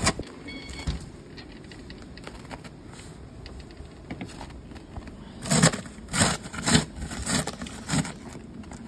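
Five crunches in deep snow, evenly spaced about half a second apart, over a faint steady hiss.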